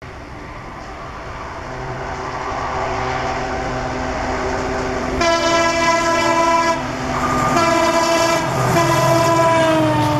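EMD WDP4 diesel-electric locomotive's two-stroke engine running hard under load, growing louder as it approaches. About five seconds in it sounds its multi-tone horn twice, a shorter blast and then a long one whose pitch drops as the locomotive passes.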